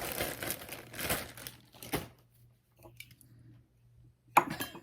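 Crinkling and rustling of something being handled, most likely fresh cotton being pulled from its packaging, for about two seconds. Then a few faint ticks and a short, sharp rustle near the end.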